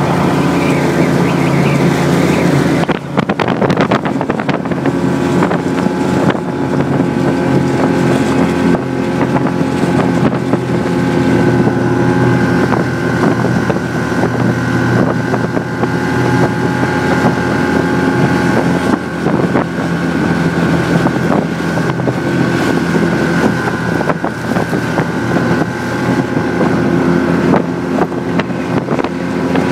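Ski-Doo snowmobile engine running steadily under way, heard from the rider's seat.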